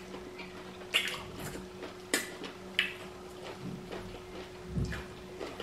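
Wet mouth sounds of eating pounded yam and okro soup by hand: short lip smacks and chewing, about six sharp smacks spread over a few seconds.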